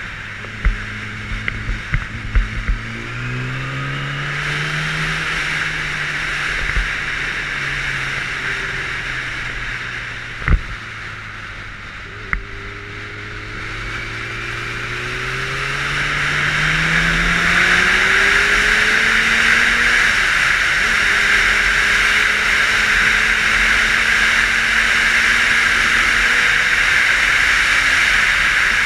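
A 600 cc motorcycle engine, heard from a helmet camera, rises in pitch as it accelerates early on and again from about fourteen seconds in, then settles to a steady cruise. Wind rush grows loud over the second half, and there are two sharp knocks about ten and twelve seconds in.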